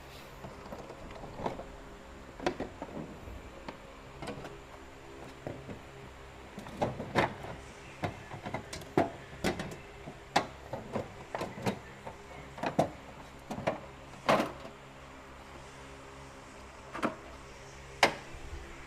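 Irregular sharp clicks and knocks of tools and parts being handled in a car's engine bay while the throttle body area is taken apart. A steady low hum runs underneath.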